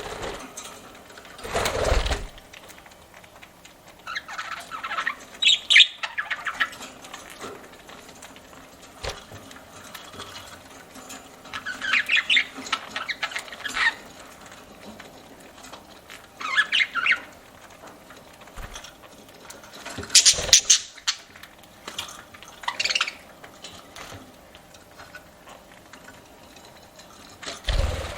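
Pet budgerigars chirping and chattering in short bursts of a second or so, several times over, with a dull thump about two seconds in.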